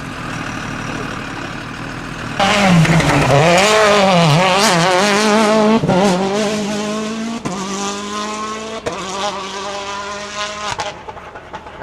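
Rally car engine at full throttle: after a quieter first two seconds, the revs swing up and down, then climb hard through several upshifts, each a brief break and drop in pitch, before the sound falls away near the end.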